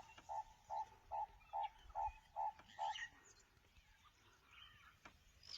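An animal calling outdoors: a series of about eight short notes at the same pitch, evenly spaced at roughly two a second, ending about three seconds in, then fainter chirps.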